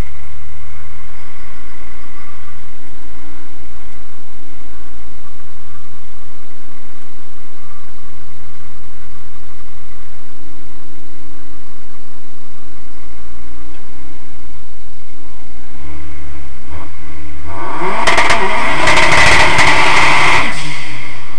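Turbocharged 1.8-litre 20-valve four-cylinder engine of an Audi Quattro drag car, heard from inside the cabin, idling with uneven, wandering revs. About 17 seconds in it revs up sharply and holds high and loud for about three seconds before the revs fall away.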